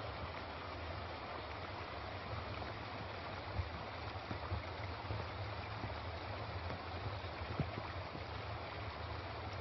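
Floodwater flowing fast across a washed-out paved road: a steady rush of moving water with a low rumble underneath.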